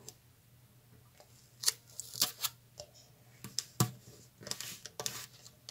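Paper and tape handling: a paper donut cut-out with tape on the back is peeled and pressed onto a paper page, giving a few short rustles and crinkles and a light tap near the middle.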